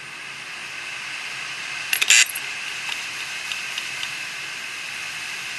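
Opened Western Digital 500 GB hard drive running with its platters spinning, a steady whirring hiss, while its head actuator arm is pushed by hand over the platter. A quick cluster of loud clicks comes about two seconds in, followed by a few light ticks. The heads are damaged and the platter surface is scored, so the drive cannot read.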